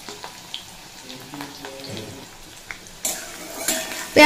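Chopped onion frying in hot mustard oil in a metal kadai: a light sizzle with scattered small crackles and pops, turning louder about three seconds in as a spatula starts stirring and scraping through the pan.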